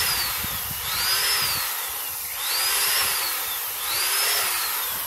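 Corded electric drill revving up and winding down about every second and a half as it bores hole after hole through a thin plastic jug, its whine rising and falling in pitch with each hole.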